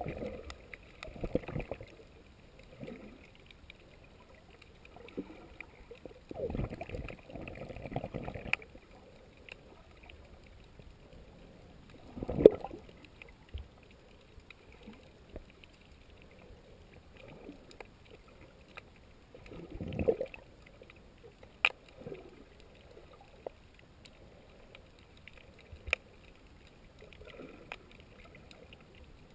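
Sea water heard by a submerged camera: muffled, irregular surges and sloshes every few seconds, the loudest about twelve seconds in. There are a few sharp clicks in the second half.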